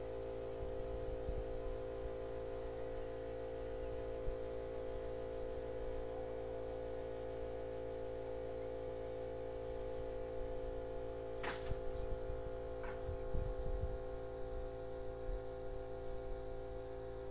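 A steady, unchanging hum made of several held tones, with two sharp clicks a little past the middle. It is the persistent noise that goes on and on without a break.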